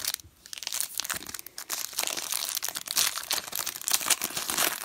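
Foil wrapper of a football trading-card pack being torn open and crinkled by hand: a dense run of crackling, thicker from about a second and a half in.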